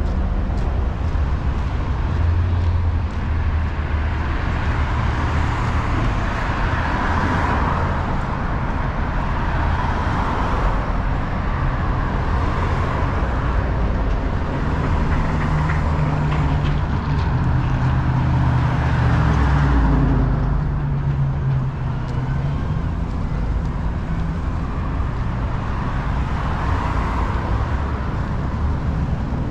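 Downtown street traffic: cars passing and idling, with a large vehicle's engine humming low and shifting in pitch through the middle stretch.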